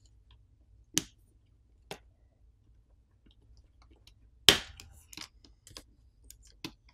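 Sharp plastic clicks and snaps as a plastic pry tool lifts the Samsung Galaxy A54 5G's top plastic cover away from the phone's frame. Two clicks come in the first two seconds, the loudest snap about four and a half seconds in, and a few fainter clicks follow.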